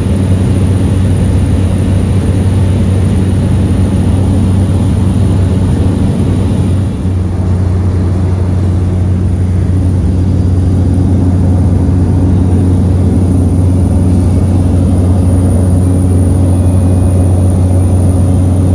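Steady cabin drone of a small high-wing propeller airplane in flight: a constant, loud low hum from the engine and propeller that holds one pitch.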